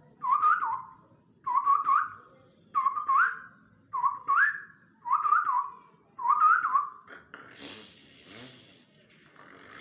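A man imitating a car with his mouth: six short whistled chirps, each rising in two quick steps, about one every second, then a steady hissing breath noise from about seven seconds in.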